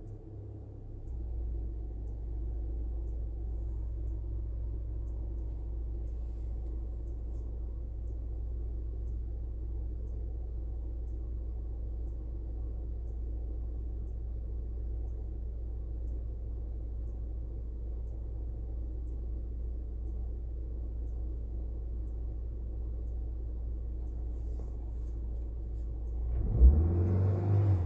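Car engine idling steadily, then revved up briefly near the end.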